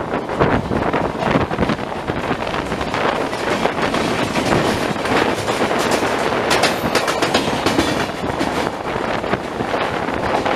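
Two trains running side by side at speed: the loud running noise and irregular wheel clatter of an EMU local train heard from its open doorway, mixed with the rush of Rajdhani Express coaches passing close alongside.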